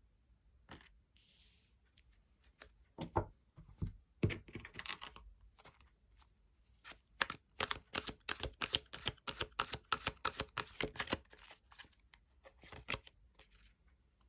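Tarot cards being handled and shuffled on a table: a few soft knocks, then a quick run of rapid card clicks and flicks that stops, with a few more near the end.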